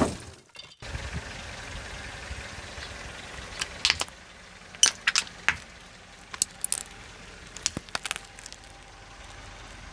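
Car tyre rolling slowly over laundry detergent pods on concrete, the pods bursting with clusters of sharp pops and cracks about four, five, six and a half and eight seconds in, over a low rumble of the rolling car. It opens with a hiss of TV static that fades out within the first half second.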